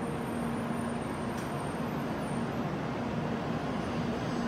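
N700A Shinkansen train arriving alongside the platform, a steady rushing rumble of the train running in.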